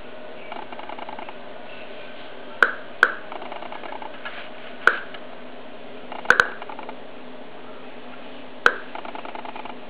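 Eberline ESP-2 survey meter's speaker clicking once for each count from its scintillation probe: six sharp clicks at random intervals, two of them almost together, over a steady background hum. The slow rate, well under one click a second, is a low count rate.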